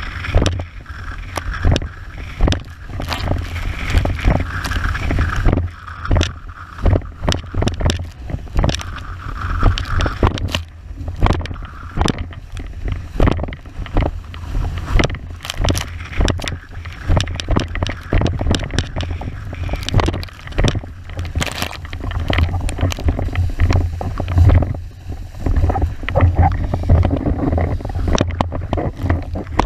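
Wind buffeting the microphone of a board-mounted camera as a windsurf wave board planes over choppy sea, with water rushing and spraying under the hull and many short slaps as the board hits the chop.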